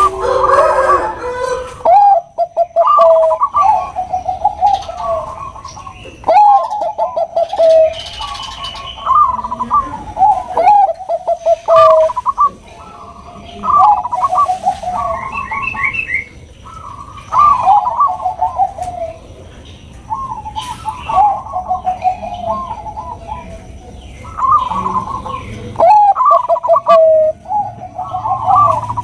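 Zebra dove (perkutut bangkok) cooing: phrases of quick, rolling notes that fall in pitch, repeating every two or three seconds. A few higher chirps come in briefly about halfway through.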